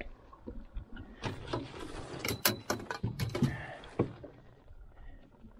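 Clicks, knocks and rustling of a small walleye being handled and unhooked in a metal fishing boat, the fish and hands bumping the hull and seat as it is laid on a measuring strip. The handling noise comes as a flurry of sharp clicks and knocks for about three seconds, starting about a second in.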